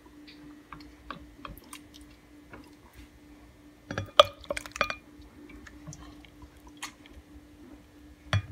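Boiled cassava pieces and cooking liquid ladled into a glass blender jar: scattered drips and soft wet plops, with a cluster of louder clinks and splats against the glass about four seconds in and one thump near the end.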